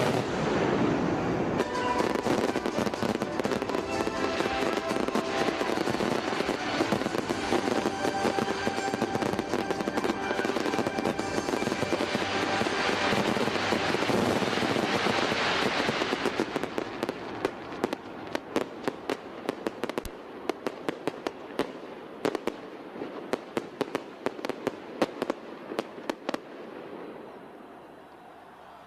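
Fireworks going off in a dense, continuous barrage, then from about sixteen seconds in thinning into rapid crackling pops that fade toward the end.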